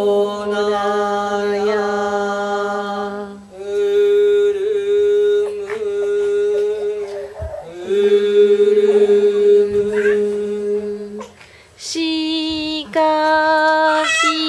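Voices chanting long held vowel tones together, a low voice and a higher one about an octave apart, each note held about three seconds with a breath between. Near the end only the higher voice goes on, at a different pitch, wavering at the close.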